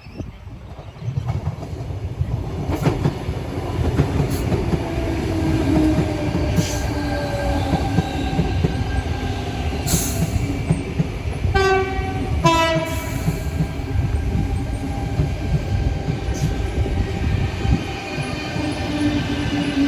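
Electric passenger train running through the station with a steady rumble of wheels on rail, starting about a second in. Two short horn blasts sound about halfway through.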